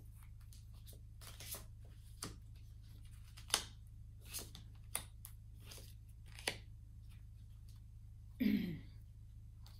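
A tarot deck being shuffled by hand: a scattering of light, irregular card snaps and slaps, over a steady low hum. A short vocal sound comes near the end.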